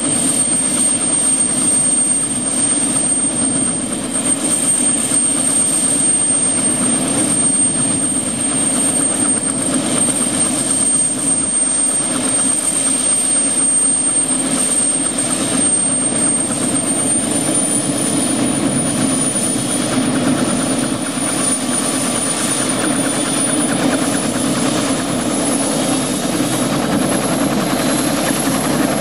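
Bell 206L LongRanger helicopter running on the ground, its Allison 250 turboshaft and turning main rotor making a steady, loud sound. A high turbine whine above it steps up in pitch about two-thirds of the way through and again near the end as the engine speeds up.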